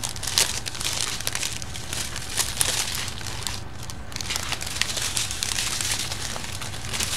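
Small plastic bags of diamond-painting drills crinkling and crackling as they are handled and pressed back into their container, with a brief lull about three and a half seconds in.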